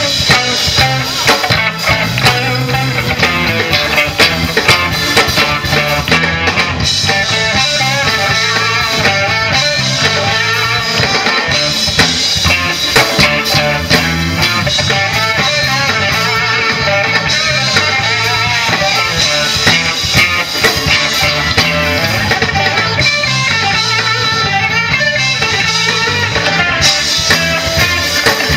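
Live blues band playing through the stage PA, led by electric guitar over drums, heard from within the crowd.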